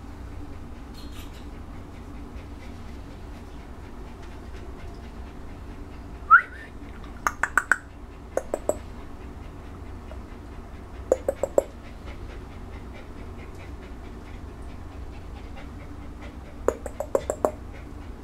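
Several quick clusters of sharp clicks, three to six at a time, and one brief rising whine about six seconds in, over a steady low hum.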